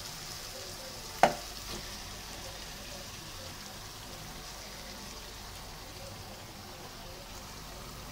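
Spice masala, fried down until the oil has separated, sizzling steadily in a nonstick pan as raw yogurt-marinated chicken pieces go in. A single sharp knock about a second in, with a smaller one just after.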